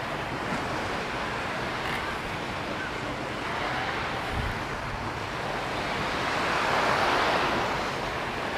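Small sea waves washing up on a sandy beach: a steady surf hiss that swells as a wave breaks about seven seconds in, then eases.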